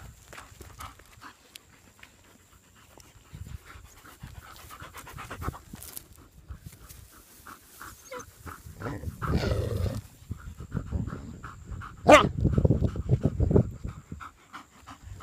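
Rapid, rhythmic panting, like a dog's, with two louder stretches of noise, the second starting with a sharp click.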